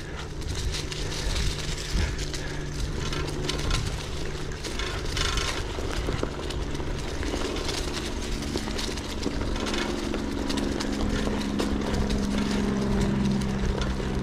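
Wind rushing over the microphone of a cyclist riding along a road. From about eight seconds in, a motor vehicle's engine hum comes in and grows steadily louder as it approaches.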